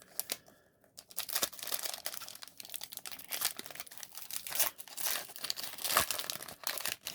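Foil Pokémon booster pack wrapper being torn open and crinkled in the hands: a dense run of crackling from about a second in, with a sharper tear around six seconds.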